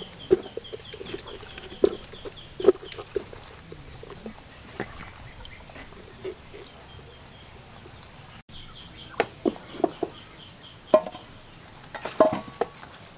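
Chickens clucking in a yard, with a few knocks of handling against a metal cooking pot. Twice a fast run of high, evenly spaced chirps sounds alongside.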